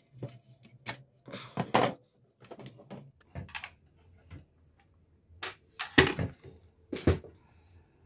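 Parts of a disassembled cordless nailer being handled: the metal mechanism and plastic housing knocking and clicking against each other and the tabletop in scattered, irregular knocks, the sharpest about two seconds in and twice near the end.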